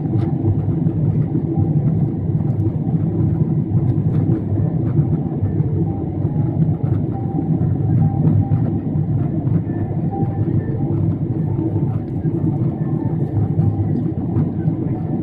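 Steady low rumble of airliner cabin noise, the jet engines and the rush of air heard through the fuselage at a window seat during the descent to land.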